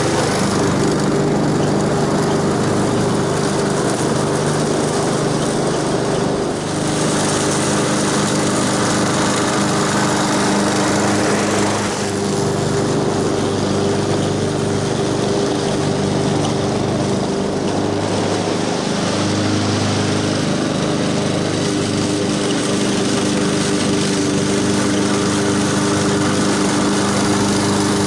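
Walk-behind gasoline lawn mower's small engine running steadily at full throttle while mowing grass.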